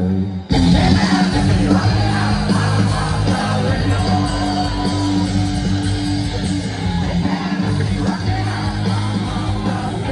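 Loud live concert music heard from within the crowd: an amplified band with heavy bass notes, guitar and singing. It jumps in abruptly about half a second in.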